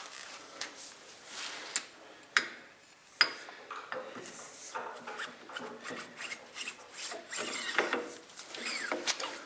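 Irregular rubbing and scraping as parts and tools are handled, with two sharp knocks about two and three seconds in.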